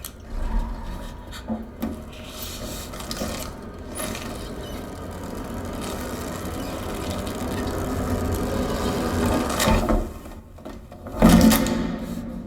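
Film sound effects played through a Polk Audio Reserve home theater speaker system with Rythmik subwoofers and recorded in the room: a deep bass rumble underneath a swelling wash of effects that builds over several seconds, then two heavy hits, the louder about eleven seconds in.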